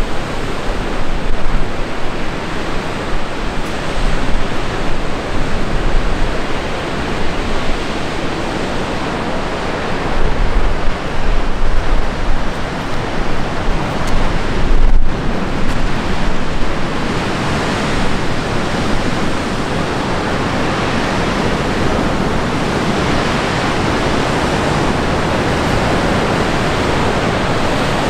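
Ocean surf breaking on rocks, a continuous rush, with wind gusting on the microphone through the first half. After a momentary drop-out about halfway, the gusts ease and the surf rush is steadier.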